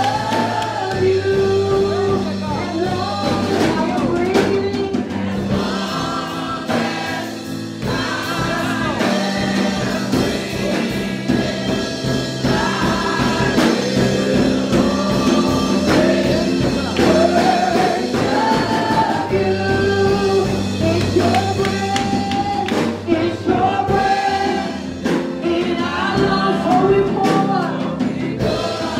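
Gospel song sung into a microphone over a live band, with a drum kit keeping a steady beat under a bass line.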